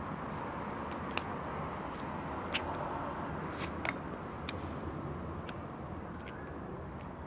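Cooked lobster shell cracking and snapping as the legs are broken apart by hand: a handful of short, sharp clicks spread over several seconds, over a steady background hiss.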